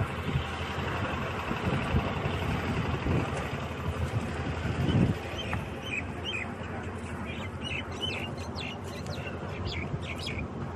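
Wind rushing over the microphone outdoors, with a low thump about halfway through. In the second half, birds chirp in a quick run of short, high calls.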